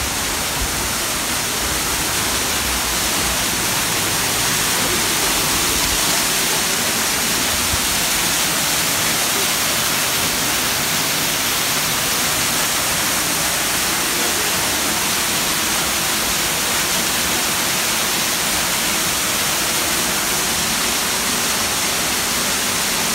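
Waterfall pouring down rockwork and splashing into a pool: a loud, steady rush of falling water.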